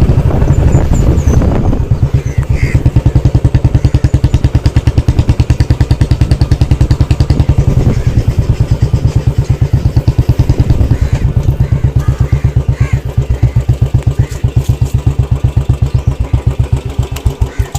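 A small engine running steadily with a rapid, even thumping beat, cutting off abruptly near the end.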